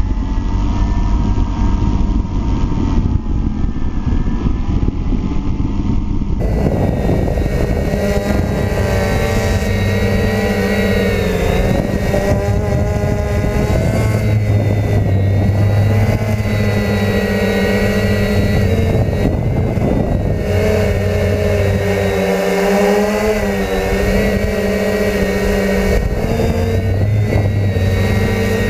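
DJI F450 quadcopter's electric motors and propellers whining, heard from the onboard camera, over a low rumble. Several pitches rise and fall together as the throttle changes.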